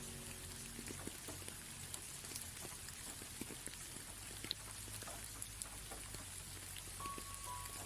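Steady rain with individual drops ticking through it. A few soft held music notes fade out in the first second, and new ones come in near the end.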